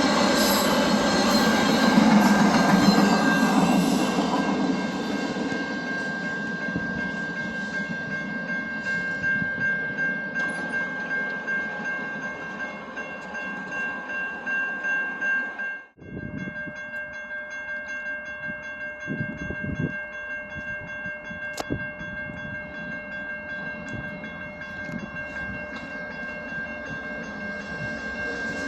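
Train rolling past on the rails, loudest in the first few seconds and then fading, with a steady high-pitched squeal throughout. The sound cuts out abruptly about halfway through and resumes.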